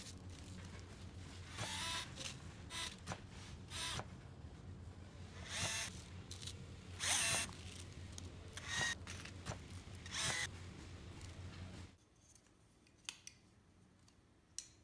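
Cordless electric drill/driver whirring in a string of short bursts, driving in the screws of an RC truck's aluminium ladder frame. The bursts stop about twelve seconds in, followed by a few light clicks.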